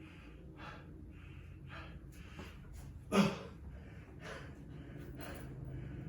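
A person breathing hard from exertion in quick, repeated breaths, with one louder voiced exhale or grunt about three seconds in.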